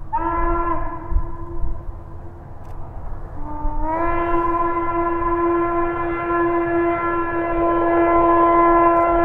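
Western Maryland 1309's steam whistle, on an articulated steam locomotive, blowing. A blast at the start eases off, then a long blast of several seconds slides up in pitch as it opens and drops as it closes near the end. A low rumble runs underneath.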